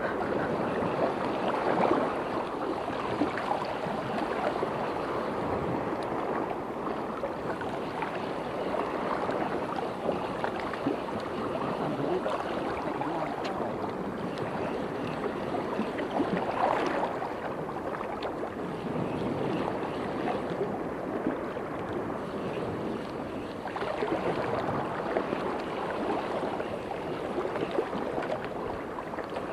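Estuary water lapping and rushing around a wading angler, a steady wash of noise that rises and falls a little.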